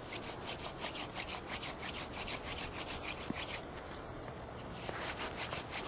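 Goldenrod hand-drill spindle spun back and forth between the palms in a wooden fireboard socket: a fast, even rasp of wood on wood, several strokes a second. Light early pressure, grinding up the wood dust that will form the coal; the strokes stop for about a second near the end, then start again.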